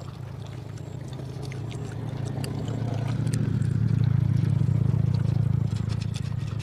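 A motor engine's steady low drone grows louder to a peak about four to five seconds in, then fades, as a vehicle passes by. Faint clicks of fingers picking food off a leaf and eating are heard over it.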